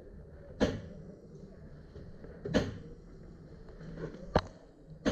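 Airsoft gunfire: three sharp cracks about two seconds apart, with a fourth right at the end.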